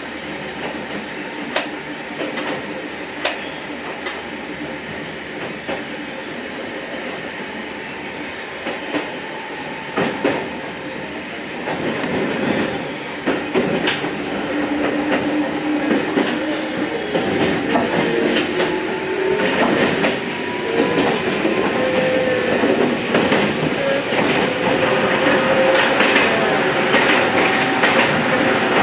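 Toyama Chiho Railway 14760 series electric train running, heard from the leading car, its wheels clicking over rail joints. From about twelve seconds in the running grows louder, and thin squealing tones from the wheels come and go.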